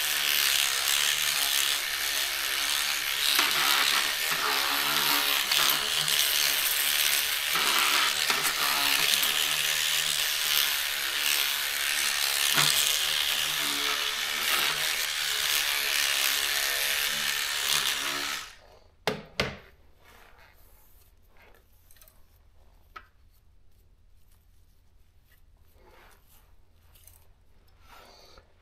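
Electric cleaning brush running and scrubbing soapy plastic typewriter keys, a steady scrubbing noise over a faint motor tone. It stops abruptly after about eighteen seconds, and a few light clicks and taps follow.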